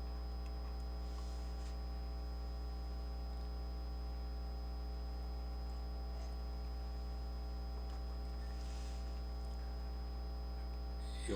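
Steady electrical mains hum with its stack of overtones and a thin high whine, picked up by the recording chain. Two faint, brief hisses pass over it.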